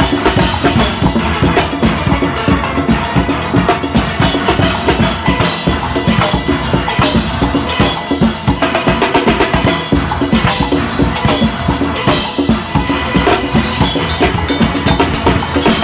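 Steelband engine room playing: a drum kit driving a fast, steady groove of kick, snare and cymbals, with steel pans sounding along with it.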